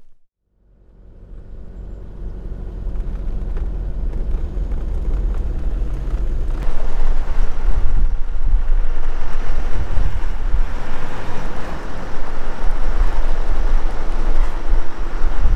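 A vehicle driving along a road: engine running with road and wind noise on the microphone. It fades in from silence, builds over several seconds, and gets louder again about seven seconds in.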